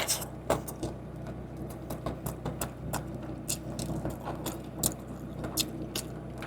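Close-up eating sounds of a crispy fried chicken sandwich (a KFC creamy spinach zinger): irregular crunchy clicks and crackles of chewing and wrapper handling, over a steady low hum.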